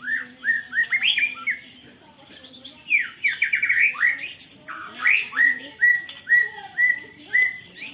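White-rumped shama (murai batu) singing loudly, with canary song in its repertoire: short down-slurred whistled notes, a fast rattling trill about three seconds in, then a steady run of evenly repeated notes, about three a second.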